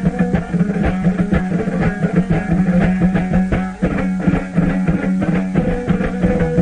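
Instrumental passage of Tajik traditional music: a plucked string instrument plays quick notes over a steady low drone.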